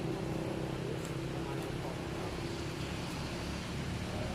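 Steady low motor hum over a noisy background.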